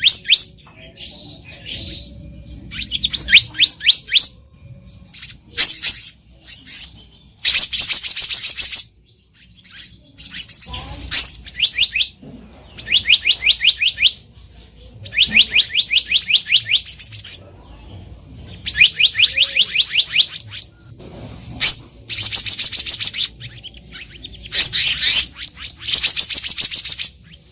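Black-naped monarch calling: quick trains of high, clear notes, each burst about a second long, repeated every two seconds or so, with a few shorter single notes between them.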